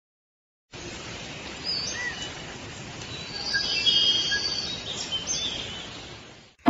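Forest ambience: a steady hiss with scattered bird chirps and whistles, coming in under a second in, swelling in the middle and fading out near the end.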